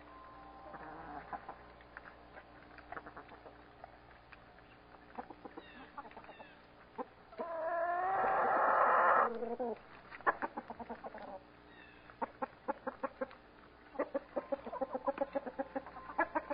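Backyard hens clucking on and off, with one loud, harsh drawn-out call of about two seconds near the middle and a quick run of clucks near the end.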